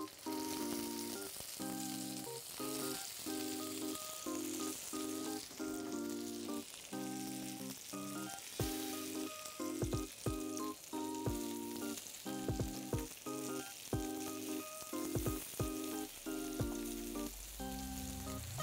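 Beef fillet steaks sizzling steadily in hot olive oil and butter in a frying pan, a quick high-heat sear of the surface. From about halfway through come short metallic clicks and knocks as tongs turn the steaks against the pan. Soft melodic background music plays underneath.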